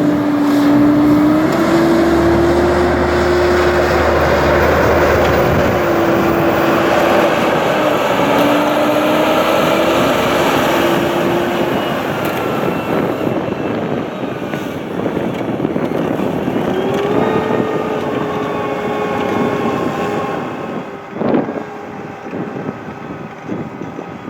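Fendt 724 Vario tractor, its six-cylinder Deutz turbo diesel working under load pulling a six-furrow reversible plough, with a steady whine that wavers in pitch and then steps up higher about two-thirds of the way through. The sound grows fainter toward the end, where there is a single sharp knock.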